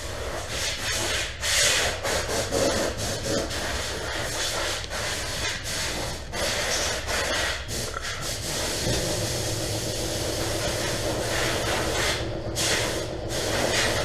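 Rubbing and scraping noises, then from about nine seconds in a steady hum with a hiss.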